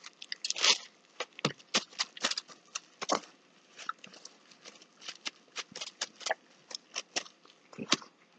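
A dog licking a plastic bag, with quick, irregular wet licks and crinkles of the plastic, several each second.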